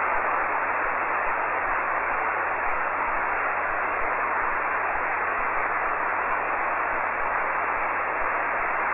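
Steady hiss of band noise from an HF amateur radio receiver, squeezed into a narrow, telephone-like band, with no station heard answering on the open frequency.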